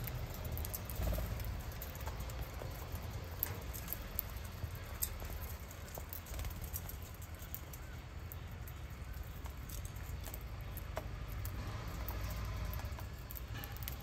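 Lovebirds cracking sunflower seeds and pecking at a metal feeding dish: irregular small sharp clicks and taps over a steady low rumble.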